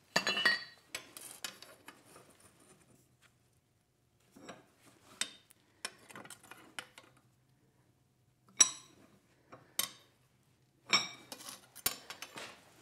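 Scattered metal-on-metal clinks and knocks as a steel ladle handle is bent around bending dogs clamped in a bench vise. They come in irregular clusters with short gaps, and a few sharper strikes near the middle ring briefly.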